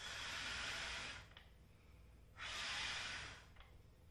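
A person blowing twice through the rolled paper trunk of a paper craft elephant, party-blower style, to make the trunk unroll and rise. Each blow is a rush of breath lasting a little over a second, with about a second between them.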